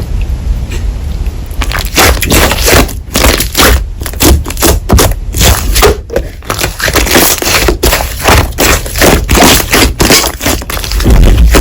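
Hands squeezing and pressing slime close to the microphone. After a quieter first two seconds comes a dense run of short, crackling, popping squishes, several a second.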